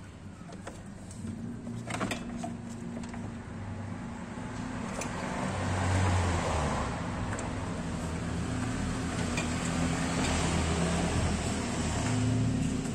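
A steady low hum that swells around the middle, with a couple of light metal clinks in the first two seconds.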